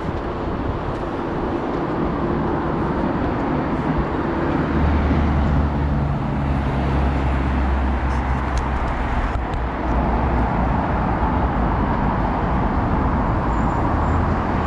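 Steady traffic noise from a busy multi-lane road. A heavy vehicle's low engine hum is loudest from about five seconds in.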